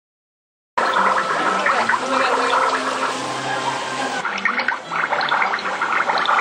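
Fountain water splashing and gurgling, cutting in abruptly about a second in, with a few steady low tones underneath.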